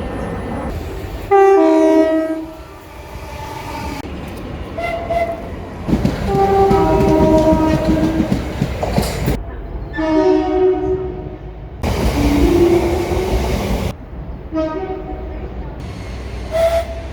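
Train horns sounding about five times, each call two notes in quick succession, mostly high then low, over the rumble of a train on the rails. The sound changes abruptly several times as one recording is cut to the next.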